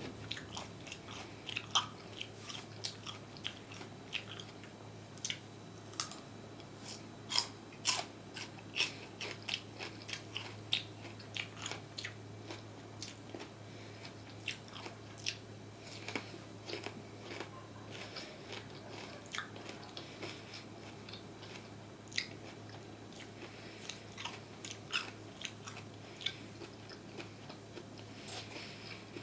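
Close-miked chewing of crunchy food: many sharp crunching clicks, thick and fast in the first half and thinning out over the second half.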